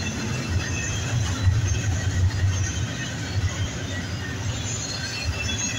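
BNSF double-stack intermodal container train rolling past: a steady rumble of wheels on rail.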